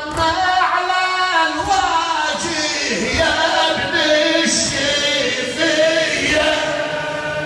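A man's voice chanting a latmiya, a Shia mourning lament, in long held, melismatic notes that wander up and down in pitch, echoing in a large hall.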